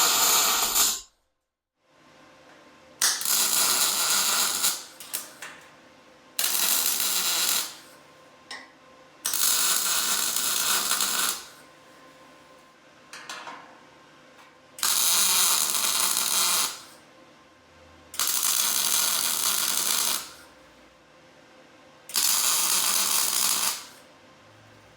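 Electric welding arc on 14-gauge sheet steel, crackling in short runs of one to two seconds, about six times, with pauses between the welds.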